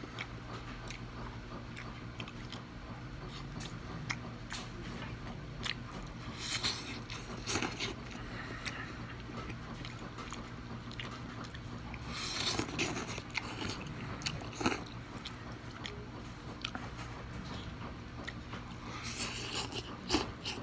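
A person eating Top Ramen instant noodles with chopsticks: wet chewing and small mouth clicks, with louder noodle slurps about six and a half seconds in, about twelve seconds in and near the end. A steady low hum runs underneath.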